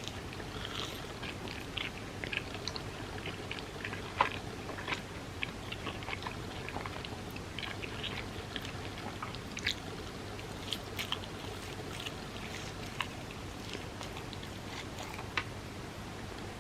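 Close-miked eating sounds: chewing and biting, with many small sticky mouth clicks and smacks and a sharper click about four seconds in.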